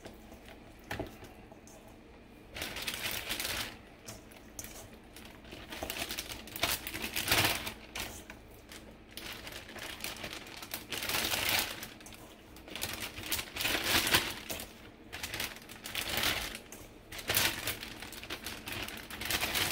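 Plastic zip-top bag crinkling and rustling in irregular bursts as raw chicken pieces are put into it by hand, starting a couple of seconds in.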